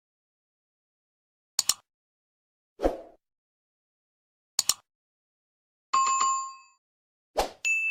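Inserted sound effects over dead silence: a few sharp clicks and a duller knock, then a short metallic bell ding about six seconds in and another ding starting near the end and ringing on.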